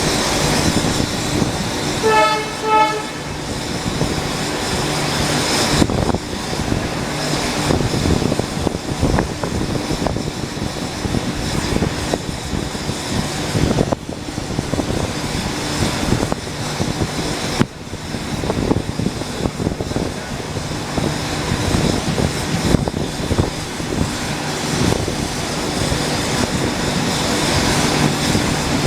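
Electric locomotive horn gives two short toots about two seconds in, then a passenger train rolls on with a steady rumble and clatter of wheels, with scattered sharp clicks from the rails.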